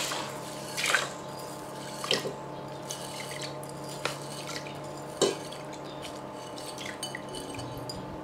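Soaked mung beans and their soaking water poured from a glass bowl into a stainless steel pot of water, with scattered splashes, drips and light knocks as the last beans are scraped out of the bowl. The splashes come about once a second at first, then more sparsely.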